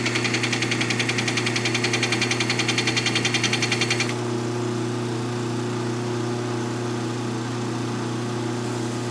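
Belt sander running a 1-inch, 30-micron diamond belt while a carbide tooth of a biscuit joiner blade is ground on it: a grinding hiss over the motor's steady hum, pulsing about seven times a second as the thick taped belt joint knocks past the tooth. The grinding stops about four seconds in, leaving only the sander's motor and belt running.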